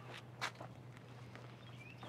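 A few soft footsteps on the ground, the loudest about half a second in, over small birds chirping and a low steady hum.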